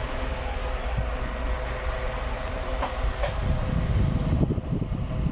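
Small USB-C table fan running with its oscillation switched on: a steady motor hum with a few light clicks. About three seconds in, a fluttering low rumble builds up.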